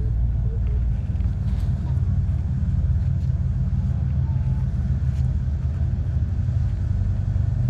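A steady low mechanical hum, with a few faint light ticks over it.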